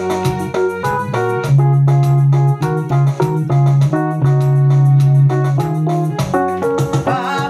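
Instrumental keyboard music: a quick run of piano-like notes over long held bass notes.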